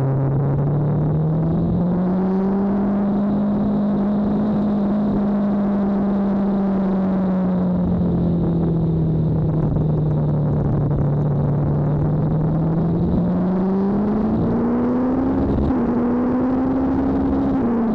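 BMW S1000RR's inline-four engine heard from onboard under throttle over wind rush. The revs climb quickly at first, ease off through the middle, then build again near the end as the bike picks up speed.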